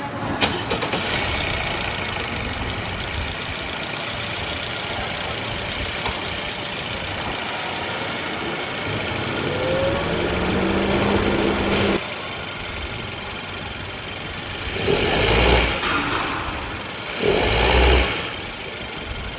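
Honda Civic RS Turbo's 1.5-litre turbocharged four-cylinder engine running on a freshly fitted serpentine belt, revved briefly twice near the end. Its noise is only partly reduced, which the mechanic puts down to the worn auto-tensioner with a weak shock.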